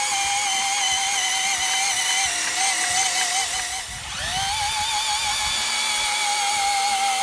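Cordless drill whining steadily as it turns a four-cylinder engine over by the harmonic balancer, with the pistons moving in open bores. Its pitch wavers slightly with the load of the pistons. About four seconds in it stops briefly, then spins back up with a rising whine.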